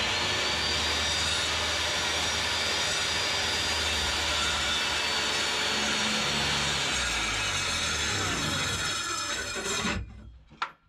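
Corded oscillating multi-tool cutting into the coop's OSB wall sheathing. It runs steadily with a high whine over a rasping noise; the pitch climbs as it spins up at the start and sags after about seven seconds. It stops about ten seconds in, followed by a single click.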